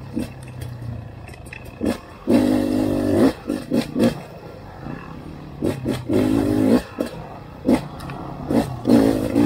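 Two-stroke enduro motorcycle engine running at low revs with three short bursts of throttle, each about a second long. Scattered knocks and clatters run through it.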